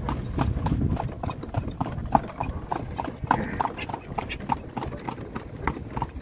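Horse's hooves clip-clopping as it pulls a cart, a steady beat of about three to four strikes a second. A low rumble runs underneath, strongest in the first second.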